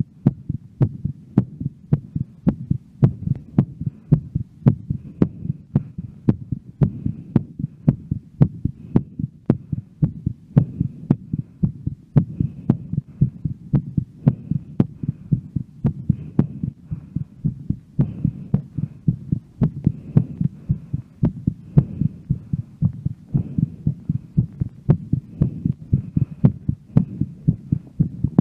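A woman's heartbeat picked up through a microphone on the chest, beating quickly and evenly over a steady low hum. The rate is raised from exercise, still recovering after a workout.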